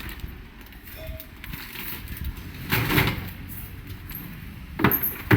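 Handling noise from unboxing a washing machine: packaging and parts being shifted and scraped, with a loud scrape about three seconds in and another, sharper one near the end.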